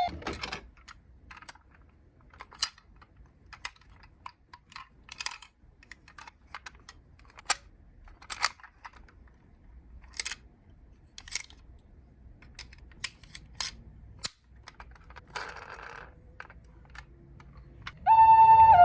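Scattered light clicks and taps of small hard objects, with a brief rustle near the end. Then a two-tone hi-lo ambulance siren ('pee-po') starts abruptly.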